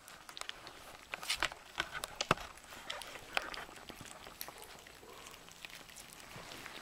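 Bichon Frise puppies lapping and smacking at soft puppy mush in a shallow plastic dish: a busy, irregular run of wet clicks and smacks, thickest in the first couple of seconds.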